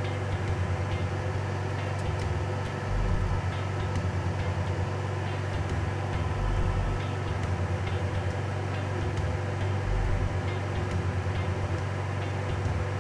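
Steady blower hum of a clean-bench fan, with a few faint clicks of small hard-drive parts being handled.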